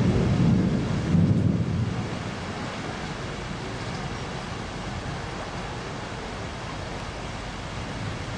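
Small waves washing onto a sandy beach: a steady rush of surf, with a louder low rumble in the first two seconds.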